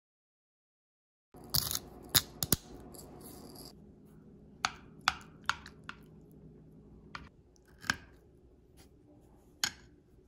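Metal knife and fork clinking and scraping against a ceramic plate while cutting into burrata: a dense cluster of sharp clicks starting about a second in, then single clinks every half-second to a second and a half.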